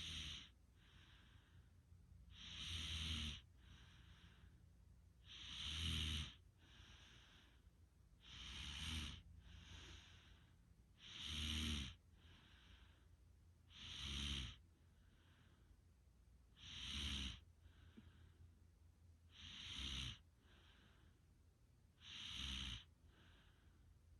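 Steady snoring at a slow, regular rhythm: a snore about every three seconds, with a softer breath between each one.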